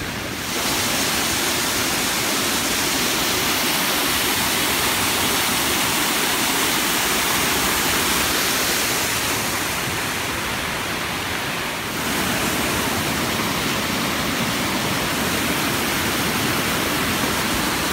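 Alamere Falls' creek water rushing and pouring over the rock ledges at the top of the falls, a steady loud rush heard close up.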